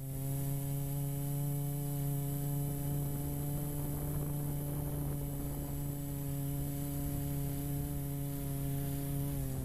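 Turbo Ace Matrix-S quadcopter's motors and 15-inch carbon props in flight, heard from its onboard GoPro: a steady, even hum with a high hiss over it, cutting off suddenly at the end.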